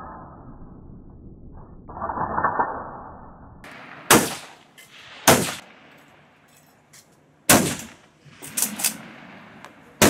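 Metallic clicking and sliding of a Schmidt-Rubin K11 straight-pull rifle's action as it is loaded with 7.5x55 cartridges. After about four seconds come sharp rifle shots with an echoing tail: three loud shots one to two seconds apart, then a few fainter ones near the end.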